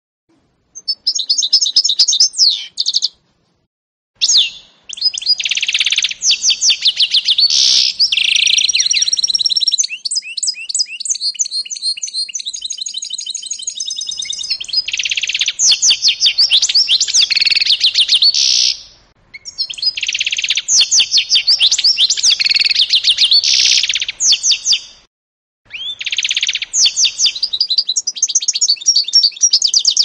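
Goldfinch × canary mule (hybrid finch) singing: long, fast phrases of high trills, chirps and rolls, broken by short silent pauses. About ten seconds in, the song settles for a few seconds into a quieter, even rolling trill before the louder phrases return.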